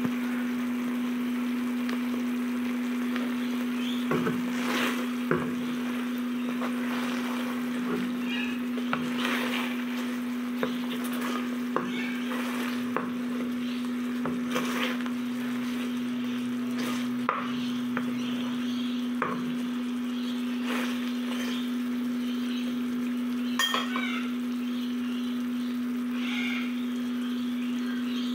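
Chicken adobo sizzling in a nonstick wok while a wooden spoon stirs it, knocking and scraping against the pan at irregular moments. A steady low hum runs underneath throughout.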